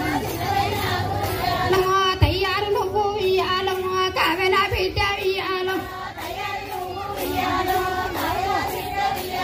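High women's and girls' voices singing a Bathukamma folk song, with long held notes.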